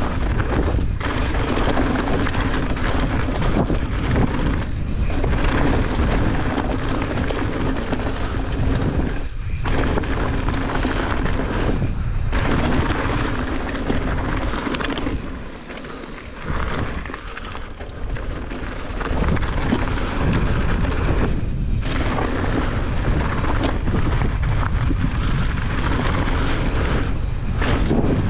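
Mountain bike descending a loose, rocky trail: a steady rush of wind on the camera microphone, with the tyres crunching over gravel and stones. It eases off for a few seconds just past halfway.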